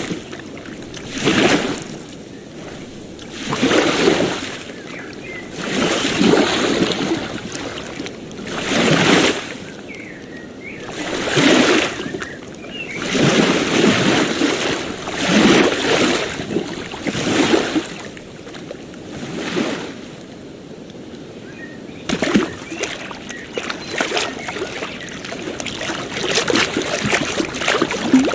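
Ocean waves washing onto a shore, each wave surging and falling away about every two to three seconds. Near the end the surges give way to a steadier fizzing wash full of small splashes.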